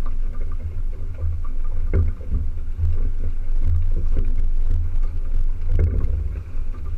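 A small sailboat under way: wind buffeting the microphone as a heavy, uneven rumble, with water splashing and slapping irregularly against the hull.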